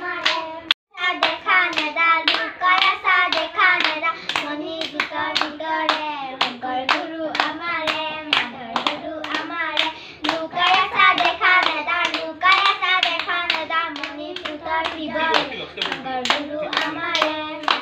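A group of young girls singing a clapping-game song together, clapping their hands in a quick, even rhythm of about two to three claps a second, with a brief pause about a second in.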